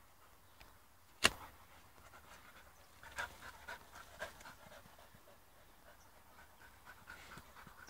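Two black Labradors panting while they dig in soil, a run of short quick breaths from about three seconds in. One sharp knock stands out about a second in.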